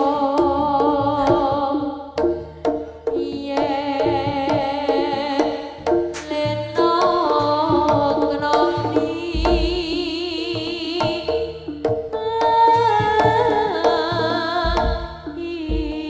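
Live Javanese jaranan gamelan music: drums and pitched percussion step through a repeating melodic pattern, with a wavering lead melody above it. The music thins briefly about two seconds in, then picks up again.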